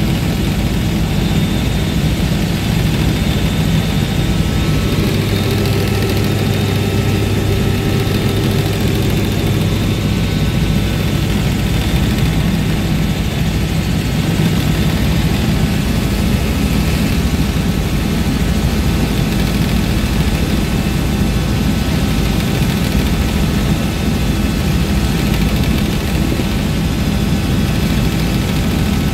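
Helicopter in cruise flight heard from inside the cabin: a steady, loud drone of engine and rotor, with a few thin steady high tones over it.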